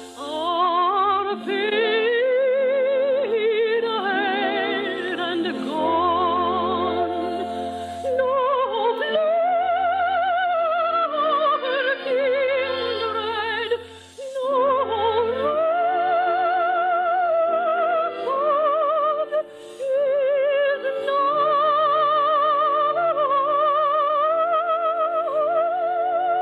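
Soprano singing a slow, sustained song with wide vibrato over soft orchestral accompaniment, with short breaks between phrases; the sound is thin and band-limited, as on an old radio broadcast recording.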